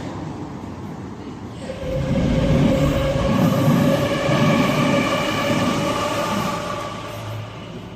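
A train passing: a loud rumble with a steady, even-pitched whine that starts about two seconds in and fades near the end.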